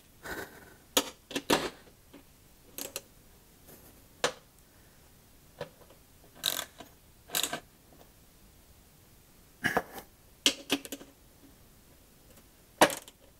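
Metal bolts and hand tools clicking and clinking against a lawn mower deck's spindle housing as the bolts are threaded in by hand, about a dozen short separate clicks at irregular intervals.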